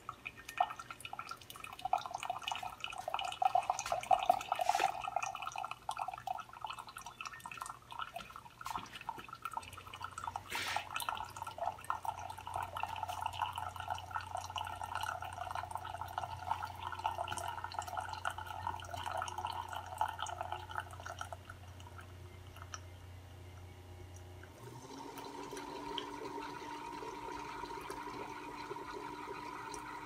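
Tastyle single-serve coffee maker brewing a cup of ground coffee on its bold setting: water gurgling and sputtering through the machine as coffee streams and drips into the mug. A low hum runs through the middle, and about 25 seconds in the sound turns steadier.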